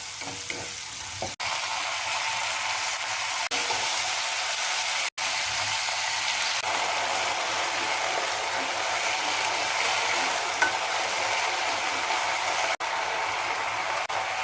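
Cauliflower frying in hot oil: a steady, crackling sizzle that cuts off abruptly for an instant several times.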